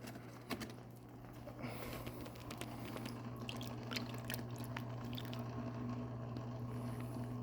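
Wet saltwater live rock being handled and shifted, with scattered light clicks and knocks growing busier about a second and a half in, over a steady low hum.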